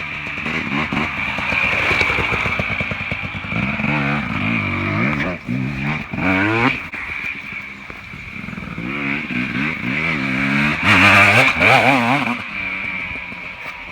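Two-stroke dirt bike engine being revved, its pitch rising and falling again and again, with the loudest revs near the end.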